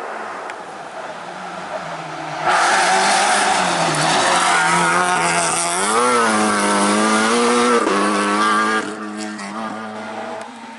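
Rally car passing at speed on a tarmac stage, its engine loudest from about two and a half seconds in. The engine note swings up and down around six seconds, then drops and fades as the car pulls away.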